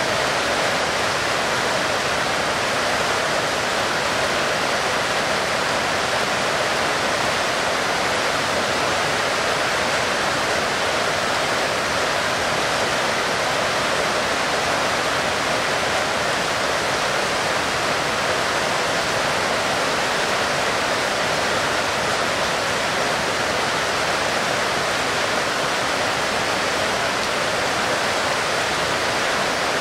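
Heavy rain falling, a dense, steady hiss with no single drops standing out.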